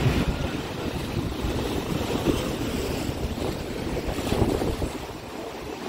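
Rough sea surf breaking and washing over a rocky shore: a continuous rush of churning water that swells and eases.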